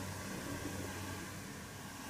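Steady hiss with a low hum underneath: room tone, with the model trains standing still rather than running.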